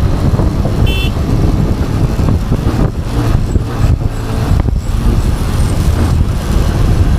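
Honda X-Blade's single-cylinder engine running while riding in traffic, a loud low rumble throughout, with a brief horn toot about a second in.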